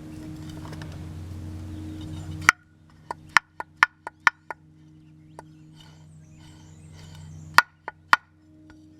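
Sharp metallic clacks and knocks from a lawn tractor's freshly oiled belt-tensioner pulley assembly as it is worked up and down by hand: one loud clack, a quick run of about seven more, then three more near the end. A steady low hum runs underneath.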